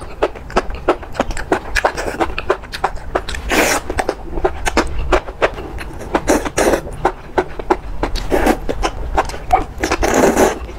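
Close-miked slurping and chewing of rice noodles and enoki mushrooms in spicy broth: about four longer slurps, with quick wet mouth clicks between them.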